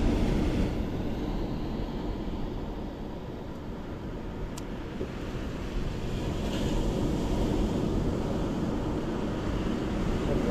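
Wind buffeting the microphone along with breaking surf at the shore: a steady low rushing noise that eases a little midway and builds again.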